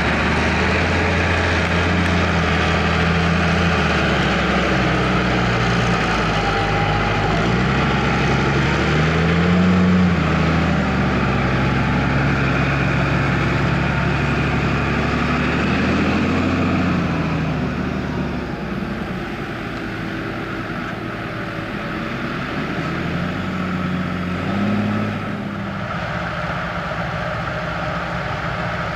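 Valtra tractor's diesel engine running with a Grimme potato harvester working behind it. The engine pitch swells up and back three times, and the whole sound gets quieter about two-thirds of the way through.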